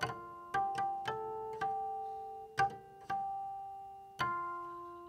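Guqin played in harmonics: a slow solo melody of about nine single plucked notes, each a clear bell-like tone that rings on and fades before the next.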